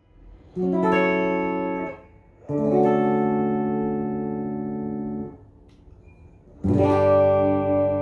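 PRS SE Custom 24 35th Anniversary electric guitar played clean through a Fender Blues Deluxe Reissue amp: three chords, each left to ring. The first is stopped after about a second, the second rings for nearly three seconds and is then damped, and the third starts near the end.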